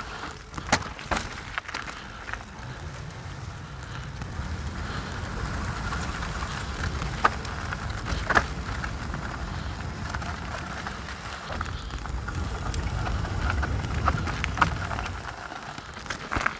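Canyon Strive mountain bike riding down a rocky trail: steady tyre and wind noise with a low rumble, broken by several sharp clanks and knocks as the bike hits rocks.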